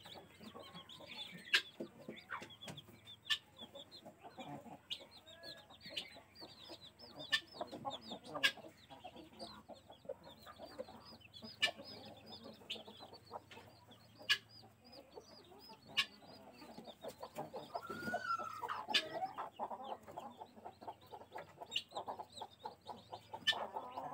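Chicks peeping continuously in short, high chirps, while a mother hen clucks, louder and lower, with a rising call and rapid clucks about three-quarters of the way through. Sharp taps come now and then, typical of beaks pecking at a clay feed pot.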